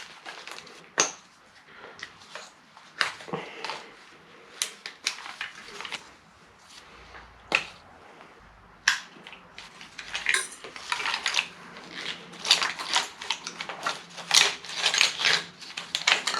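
Irregular clicks, knocks and metallic clinks of hand tools and engine parts being handled while the wiring harness is pulled off a Subaru EJ20 engine, sparse at first and turning into busier clattering about two-thirds of the way through.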